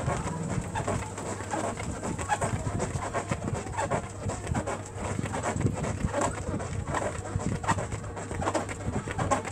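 Rhythmic, effortful breathing and feet striking an exercise mat from a person doing fast mountain climbers, a steady run of short strokes.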